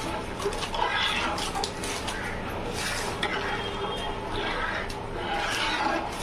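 Slotted metal ladle stirring thick milk-and-rice phirni in a large metal pot: repeated wet swishes and sloshing, with the ladle now and then clicking and scraping against the pot.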